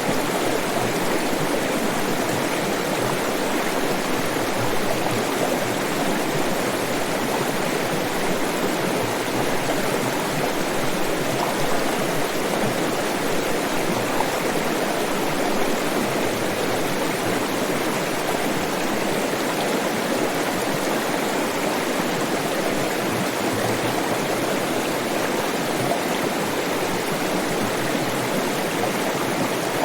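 Water flowing steadily, a constant even rushing with no breaks or changes.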